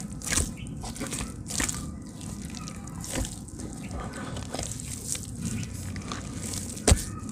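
Hands squeezing and kneading wet red clay mud in a bucket: irregular wet squelches and squishes, with one sharp smack near the end.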